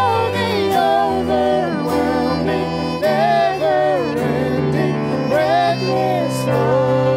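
A live worship band playing a slow song on acoustic guitar, keyboard and violin, with a melody line that slides between notes over sustained low chords.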